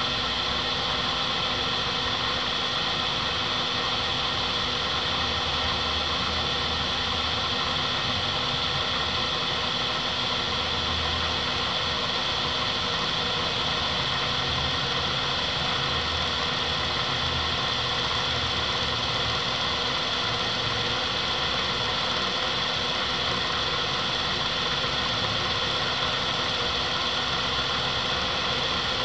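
Bridgeport 1 HP step-pulley milling head running steadily, spindle turning while the quill power feed drives the quill upward. It is a constant motor and gear hum with a steady high whine.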